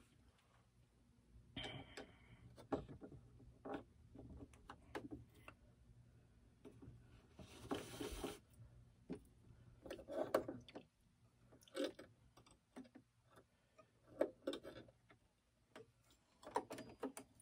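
Faint scattered clicks and knocks from hands threading a stopped Brother PE800 embroidery machine with a new spool, with a brief rustle about eight seconds in.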